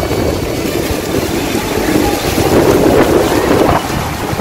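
Strong wind buffeting the phone's microphone on the open deck of a tour boat, over a dense low rumble of the boat and churning water near the falls.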